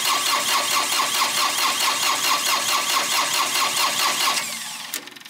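A mini excavator's Kubota three-cylinder diesel engine is cranked on its starter with a quick, regular chug, without starting. The cranking stops about four seconds in. The injector lines are loosened so fuel squirts out at the injectors, a check of fuel delivery for the engine's hard starting.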